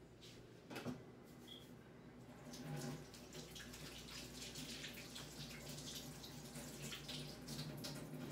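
Faint running water from a kitchen sink tap as hands are washed under it, starting about two and a half seconds in, with small splashes. A single knock sounds about a second in.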